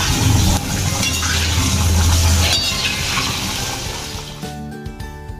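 Cauliflower florets sizzling as they deep-fry in hot oil in a kadai, with occasional clinks of a metal skimmer against the pan. About four seconds in, the sizzling fades and background music comes in.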